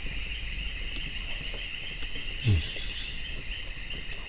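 Night insects, crickets, chirping in a rapid, even pulse of about four to five chirps a second over a steady high insect hum. A short low falling sound comes about two and a half seconds in.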